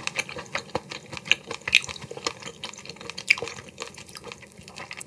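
Close-miked wet chewing of a mouthful of boiled ghost shrimp meat: many quick, irregular wet clicks and smacks of the mouth.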